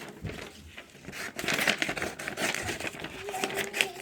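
Scissors snipping through paper in quick, irregular cuts, with the paper crinkling as it is handled.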